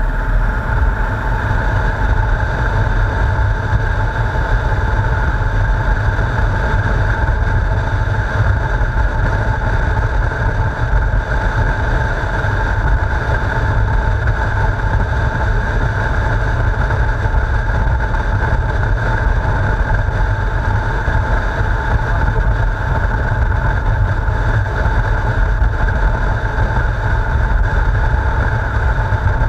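Motorcycle riding at a steady road speed: heavy wind rush buffeting the onboard camera's microphone over a steady engine drone, with no change in pace.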